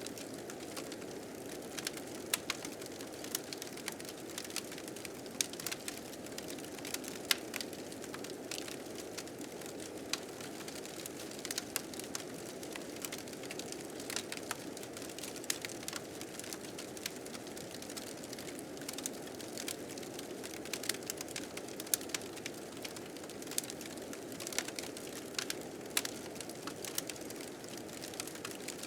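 Wood fire crackling and popping in irregular sharp snaps over the steady rushing of blizzard wind.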